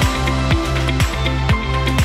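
Background music with a steady beat: a kick drum about twice a second under held bass notes.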